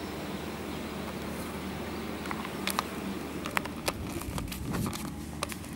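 Outdoor park ambience: a steady low hum of distant traffic, with scattered sharp clicks and taps starting about two seconds in.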